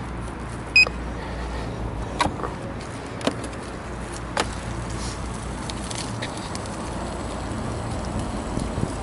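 Steady low rumble from riding a Ninebot One S2 electric unicycle: wheel, road and wind noise. A short high beep sounds about a second in, and a few sharp clicks or knocks follow over the next few seconds.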